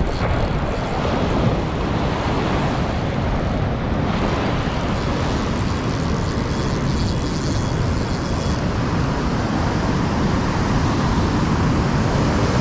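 Steady rush of surf breaking and washing up a sandy beach, with a deep rumble underneath.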